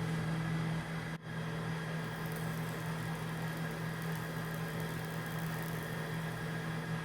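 Steady low hum with a faint even hiss: room tone, with a brief dropout about a second in.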